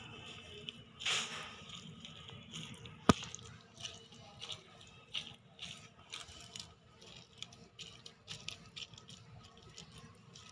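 Boiled jackfruit, chopped onion and garlic being mixed by hand in a steel plate: soft, irregular squishing and rustling, with scattered small clicks and one sharp click about three seconds in.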